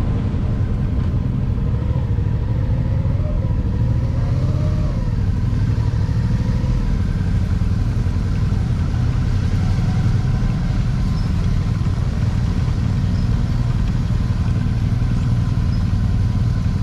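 Motorcycle running at low speed, heard from the rider's own bike as a steady low rumble. Its engine note wavers up and down between about two and seven seconds in.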